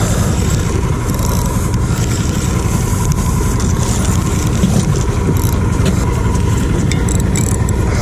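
A boat's engine idling steadily, a low even hum with no change in pace.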